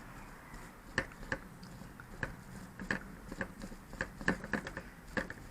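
Irregular sharp clicks and taps of hard plastic being handled, about a dozen of them, beginning about a second in: work on a quadcopter's plastic shell.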